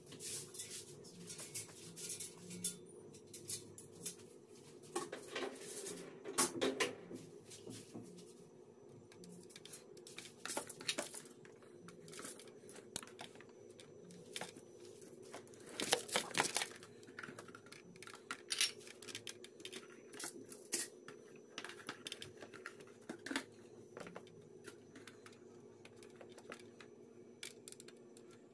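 Aluminium foil crinkling and rustling in scattered bursts, with sharp clicks and taps among them, over a faint steady hum.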